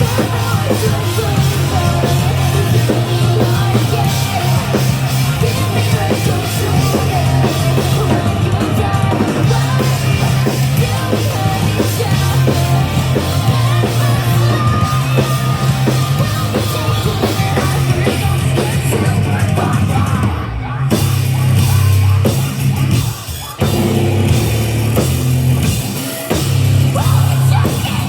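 Live rock band playing loud and heavy, with pounding drums and bass and yelled vocals. The band drops out briefly twice in the last third.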